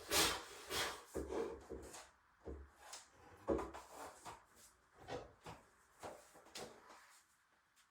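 A luxury vinyl plank being handled and fitted into place on the floor: a string of light knocks, clicks and rubbing scrapes, busiest at first and thinning out toward the end.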